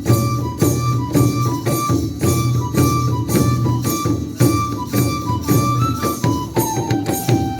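Bodo traditional ritual dance music: a high, held wind-instrument melody over a steady percussion beat of about three strokes a second.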